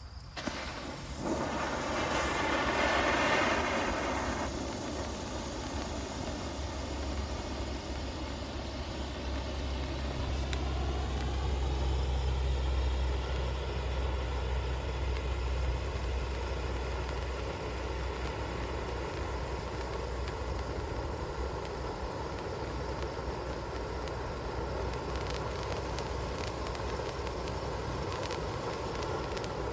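Hand-held three-tube firework fountain spraying sparks: a hissing rush that starts about a second in, is loudest for the first few seconds, then holds steady.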